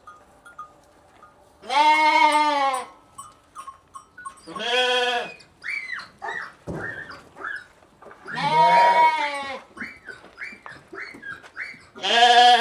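Lambs bleating: four long, wavering bleats, a few seconds apart. Short, high chirps come between them.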